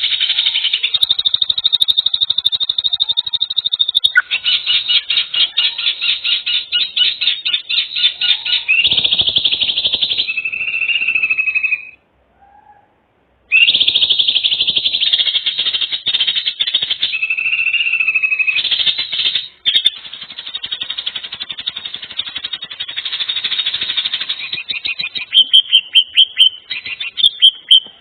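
Fast buzzing trills of animal calls, in sections that cut off suddenly, then a run of separate sharp chirps near the end.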